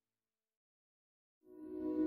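Near silence, then background music fading in near the end.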